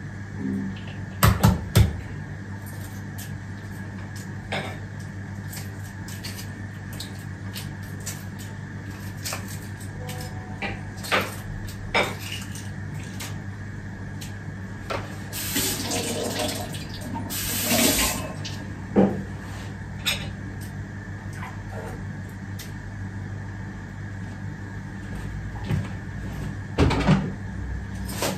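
Kitchen sink tap running in two short bursts about midway. Scattered light knocks and clatter from things handled on the countertop, over a steady low hum.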